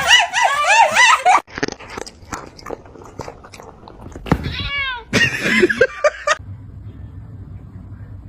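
Domestic cat yowling in a loud, fast-warbling run, then a string of sharp clicks, then two more drawn-out meows about four and five seconds in.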